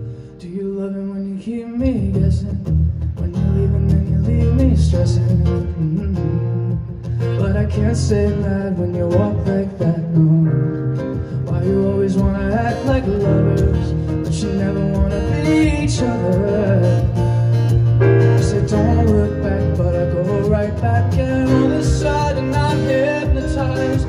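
Live pop song: a man sings over chords from a stage keyboard set to a piano sound, with an acoustic guitar accompanying.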